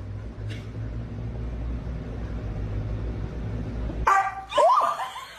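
A low steady rumble, then about four seconds in a dog gives a short bark and a high yip that bends up and down.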